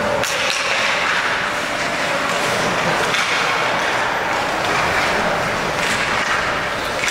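Ice hockey play at an indoor rink: a steady scraping hiss of skates on the ice, with a few sharp clacks of sticks and puck, one just after the start and another near the end.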